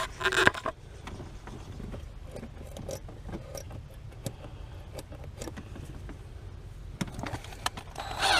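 Light metal clinks and scraping from a clutch pedal assembly being handled and test-fitted against the firewall, with a louder scrape about eight seconds in.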